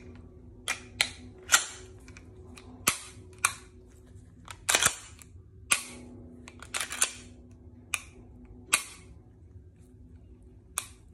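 Heckler & Koch P30 pistol, fitted with a Gray Guns short reset kit, being worked by hand: about a dozen sharp metal clicks and clacks, irregularly spaced, some in quick pairs.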